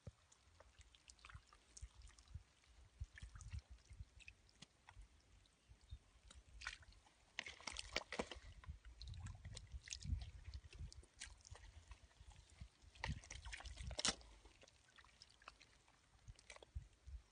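Hands digging and squelching in wet mud for fish: faint sloshing and sucking sounds with scattered short clicks and wet splats, which come thicker about halfway through and again near the end.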